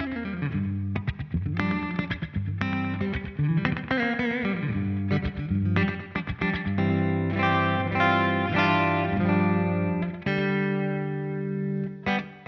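Electric guitar played through a GFI System Orca delay pedal: picked and strummed chords and notes, some gliding in pitch, ending in a held chord that stops near the end, its echo repeats fading away.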